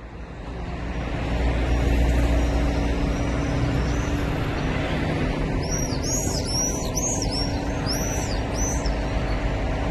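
Steady road-traffic rumble that swells in over the first second or two. Partway through, a quick run of high, arched chirps from small birds flying overhead, lasting about three seconds.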